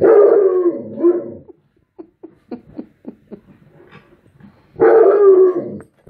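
Alaskan Malamute giving a territorial warning with loud, drawn-out barking howls: one of about a second and a half at the start and another near the end, with faint short sounds between.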